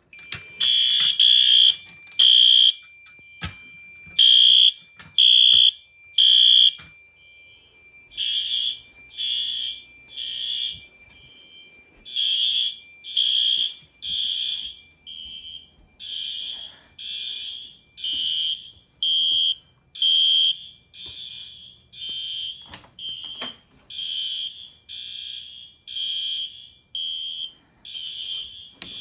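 Fire alarm horns sounding after a pull station is pulled: repeated shrill blasts about once a second from several horns at slightly different pitches, over a faint steady high tone. The loudest blasts come in the first seven seconds.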